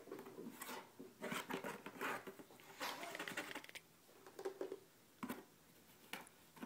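Cardboard pet carrier rustling and scraping in short, irregular bursts as a cat shifts inside and a hand rubs against the box, with a single sharp tap about five seconds in.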